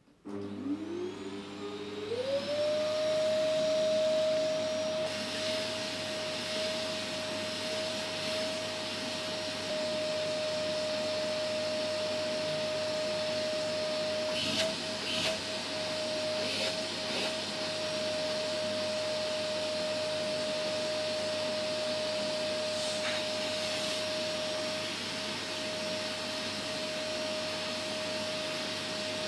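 Vacuum cleaner switched on, its motor winding up over about two seconds to a steady whine over the rush of suction, then running steadily while it is used on a cat's fur. A few brief clicks come around the middle and once more later on.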